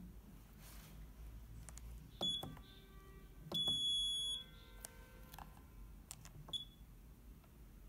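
DDCSV1.1 CNC controller's keypad buzzer beeping as its keys are pressed: a short high beep about two seconds in, a longer beep of nearly a second around the middle, and another short beep near the end. Soft key clicks fall between the beeps.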